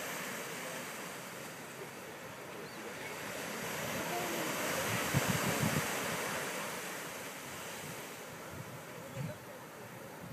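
Ocean surf washing up a sandy beach, swelling to its loudest about halfway through and then easing off, with wind buffeting the microphone in a few low thumps.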